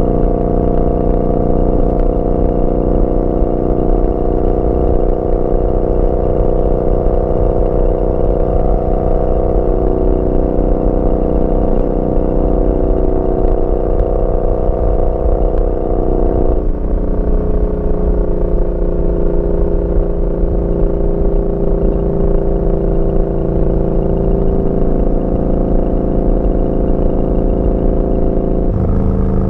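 Yamaha Bolt's air-cooled V-twin running through a Vance & Hines slip-on exhaust while riding at a steady pace. The engine note steps down suddenly a little past halfway, as at an upshift, and changes again just before the end.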